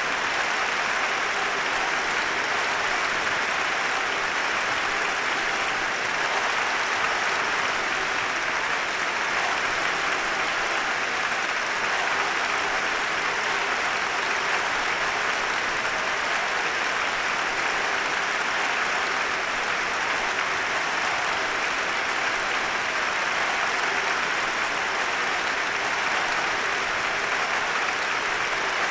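Audience applause, a dense, even clapping that stays steady.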